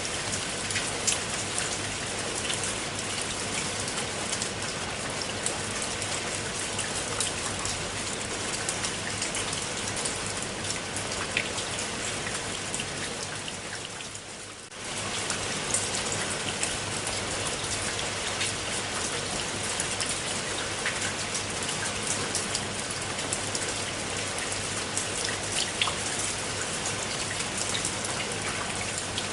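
Steady rain falling on a pool of water, an even patter with single drops ticking through it. About halfway it fades down briefly, then comes straight back at full level.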